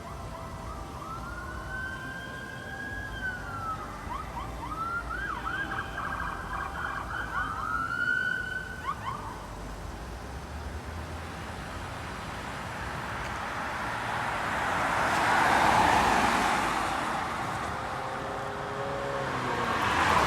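Fire department emergency siren wailing up and down, twice switching to a quick yelp, then fading. Later a vehicle passes close by, its noise swelling and dying away.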